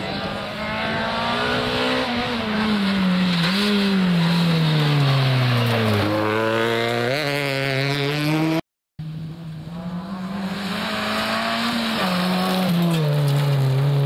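Renault Twingo rally car's engine revving hard on gravel, its pitch stepping through gear changes, falling low about six seconds in and then climbing again. After an abrupt cut, a second rally car's engine revs up through its gears in the same way.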